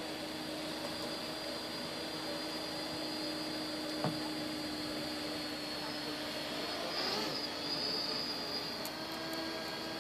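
Quadcopter's electric motors and propellers humming steadily in flight, with a single click about four seconds in.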